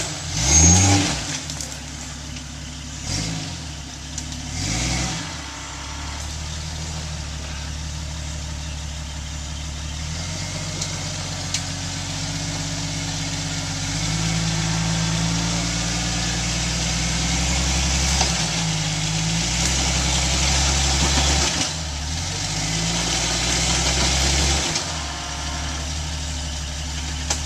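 Jeep Cherokee XJ engine crawling over a boulder at low speed under load. It gives a few quick revs in the first five seconds, then runs steadily with the revs rising and easing as the driver works the throttle, loudest about halfway through.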